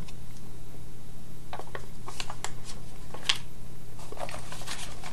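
Hands handling paper and plastic packaging: scattered light clicks and rustles, over a steady low electrical hum.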